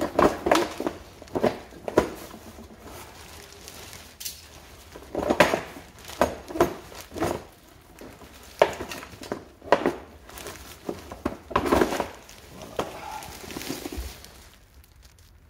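Irregular plastic knocks and clatter as a scooter's black plastic under-seat storage tray is worked loose and lifted off the frame, with the loose cables and bags inside it rattling.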